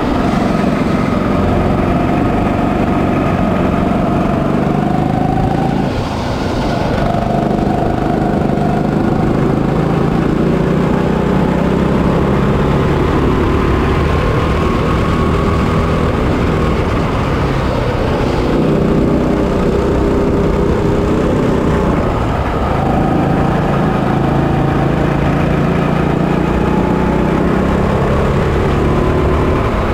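200cc single-cylinder four-stroke GX200 engine of a Kombikart racing kart, heard onboard, running hard under throttle. Its pitch drops twice as the kart slows for corners, then climbs again as it accelerates out.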